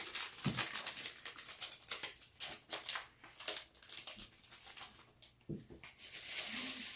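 Green flattened rice flakes being stirred and tossed in a bowl: a run of light, crisp rustling and clicking, settling into a steadier hiss near the end.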